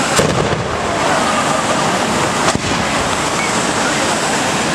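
Several hand-held tube fireworks spraying tall fountains of sparks at once, making a steady loud rushing hiss. Two sharp cracks cut through it, one just after the start and one about two and a half seconds in.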